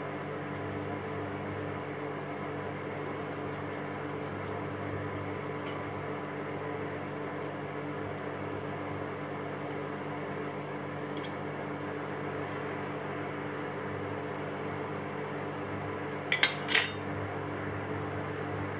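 Steady low hum with a few fixed tones throughout. About two and a half seconds before the end, two sharp metallic clinks, less than half a second apart, as a kitchen knife comes down on a stainless steel plate.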